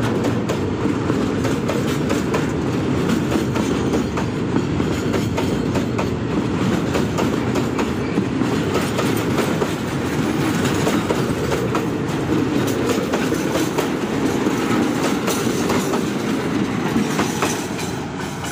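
A freight train of container-carrying flatcars rolling past close by: a steady heavy rumble of steel wheels on rail with many quick knocks as the wheels cross rail joints. It eases slightly near the end as the last wagon passes and draws away.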